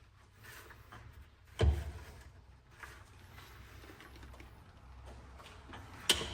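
Engine parts being handled during a bottom-end teardown: a heavy knock about a second and a half in and a sharp click near the end, with faint handling noise between.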